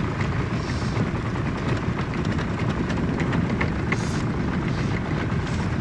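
Steady wind rumble buffeting the microphone, with a few faint ticks heard through it.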